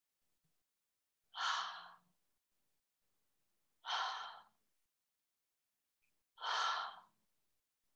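A woman's 'ha' breaths: three open-mouthed, sighing breaths, each under a second long and about two and a half seconds apart.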